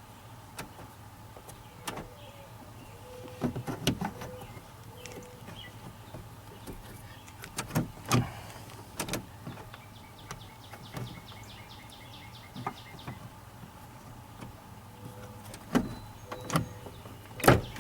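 Scattered clicks and knocks from hands working the rear door's latch cables and door handle on a 1998 Ford Ranger extended cab, trying to pop a latch whose cable sheath has broken loose, with a quick run of ticks midway.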